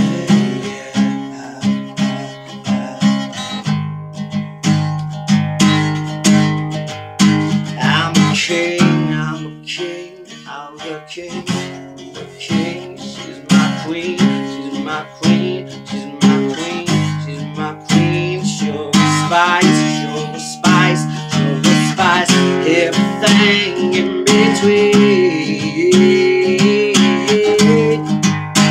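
Acoustic guitar strummed in a steady rhythm, with a man singing over it in places.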